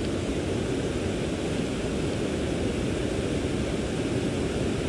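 Steady rushing of fast-flowing river water, a continuous even hiss with no distinct knocks or clicks.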